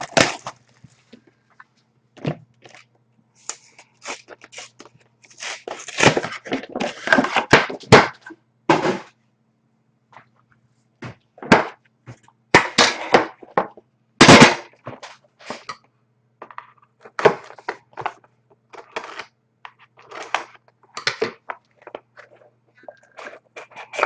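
Plastic shrink-wrap on a hockey card hobby box crackling and tearing in irregular bursts as it is stripped off, with light knocks of the box being handled. A faint steady hum runs underneath.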